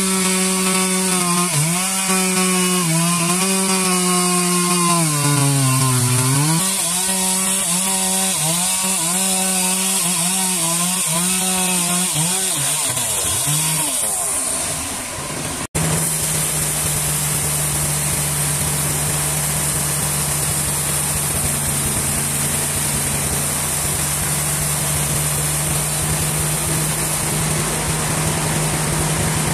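Chainsaw engine running at high revs while cutting wood, its pitch dipping and recovering as it bogs under load. After an abrupt break about halfway through, it runs on at a steady pitch through the cut.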